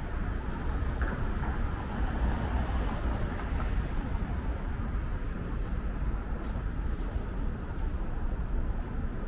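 Steady city street ambience: a low, even rumble of road traffic with no single event standing out.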